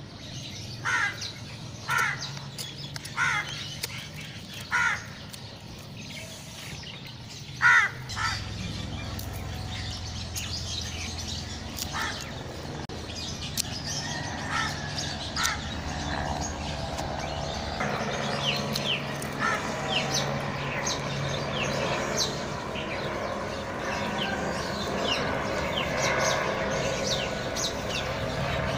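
A crow cawing, a series of harsh calls about a second apart through the first eight seconds. After that, smaller birds chirp over a steady low hum.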